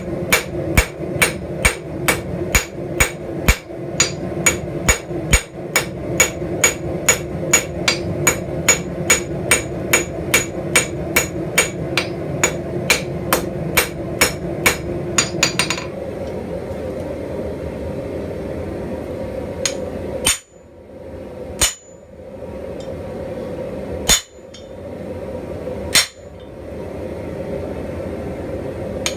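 Hand hammer striking steel on an anvil, forging a leaf: a steady rhythm of about two to three ringing blows a second. About halfway through it slows to a few single, spaced strikes, over a steady background hum.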